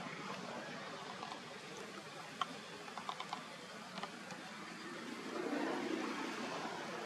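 Steady outdoor background hiss, with a few faint sharp clicks a little before halfway and a brief swell of noise near the end.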